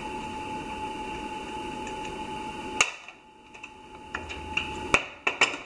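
A steady high whine over a low hum cuts off with a click a little under three seconds in and comes back faintly, then a few light metallic clinks as the lathe's steel change gears are handled and offered up to mesh on the gear train.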